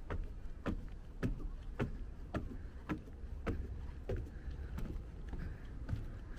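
Footsteps climbing wooden stairs and walking onto wooden deck boards, about two steps a second. The steps grow softer after about four seconds.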